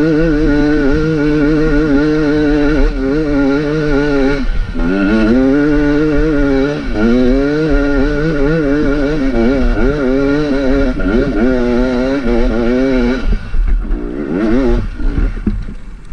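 2019 Beta enduro motorcycle's engine pulling hard up a climb, its revs rising and falling over and over with the throttle. About thirteen seconds in it drops back, with two short blips of throttle near the end.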